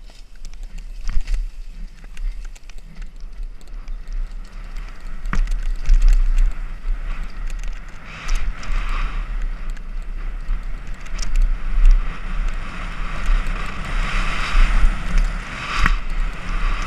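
Wind buffeting a helmet-mounted camera on a mountain bike at speed, with the tyres rolling over a dirt trail and sharp knocks as the bike hits bumps. The tyre hiss swells twice, about eight seconds in and again near the end.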